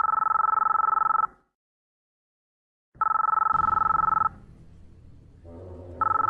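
Telephone ringing: a two-tone electronic ring in bursts of about a second and a quarter, repeating every three seconds. A third ring starts just before the end. A low steady drone comes in behind the second ring.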